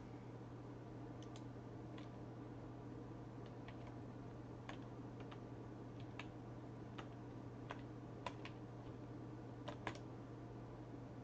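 Faint, irregular clicks of computer keys and a mouse, over a steady low hum.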